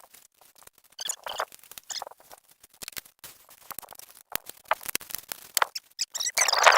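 Hand-work handling noises: irregular clicks and scratches, with a louder scraping stretch near the end.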